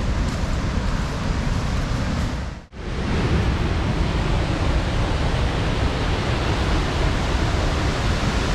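Steady rush of water falling at the Wei Sawdong waterfall. It cuts out for an instant about three seconds in, then carries on unchanged.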